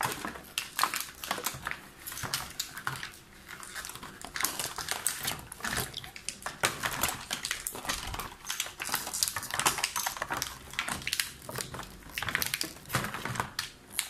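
Stiff clear plastic blister packaging crinkling and crackling as it is handled and pulled apart, a dense, irregular run of sharp crackles and clicks.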